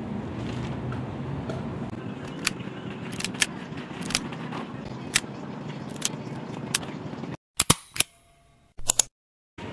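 Sharp plastic clicks and knocks of a garden hose coupling being handled and snapped onto a pressure washer's water inlet, over a steady low background rumble. About seven seconds in the rumble cuts off abruptly, leaving a few louder clicks and then silence.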